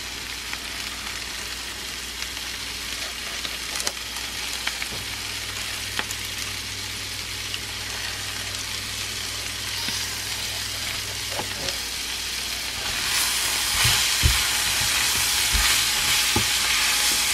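Beef with a chopped chilli-garlic balado paste sizzling steadily in a frying pan, with a few small clicks. About three quarters of the way through the sizzling grows louder as a spatula stirs through the meat, with a few soft knocks against the pan.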